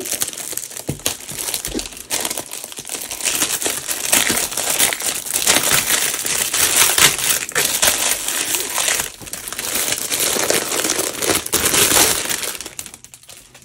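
Crinkly plastic wrapping film being pulled off a storage case and crumpled in the hands, a dense, continuous crackling that dies away near the end.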